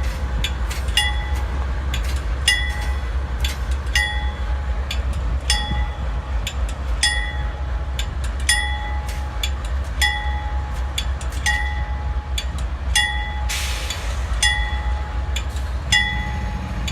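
Amtrak passenger train passing with a steady low rumble and sharp wheel clicks over the rail joints, while a bell dings about every second and a half. A short hiss comes about three-quarters of the way through.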